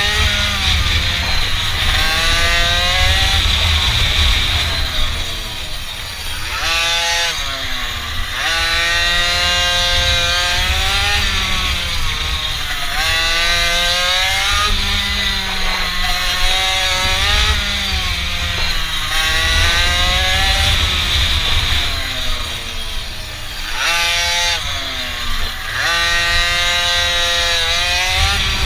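Small mini bike engine revving up and down repeatedly as it is ridden, its pitch rising and falling every couple of seconds over a heavy low rumble.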